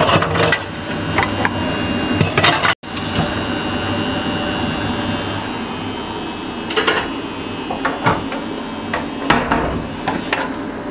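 Scattered knocks and clatter of dishes and utensils being handled at a kitchen sink, over a steady background hum.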